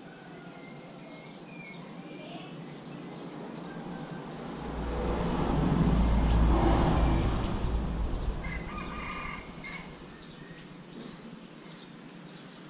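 A rooster crows briefly about nine seconds in, just after a low rumble that swells and fades over about five seconds. Small birds chirp faintly.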